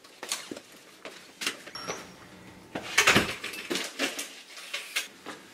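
Scattered knocks and rustles of parcels and bags being handled in a small entryway, with a louder knock about three seconds in as the apartment front door shuts.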